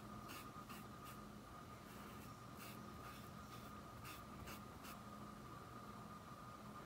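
Paintbrush loaded with white fabric paint stroking over cloth: faint, short scratchy strokes about two a second, stopping about five seconds in. A faint steady whine runs underneath.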